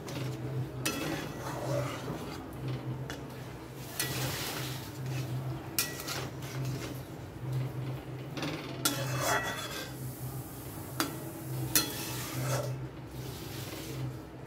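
A metal ladle scraping and stirring a thick potato curry in a metal pan, with a few sharp clinks against the pan's side. A steady low hum runs underneath.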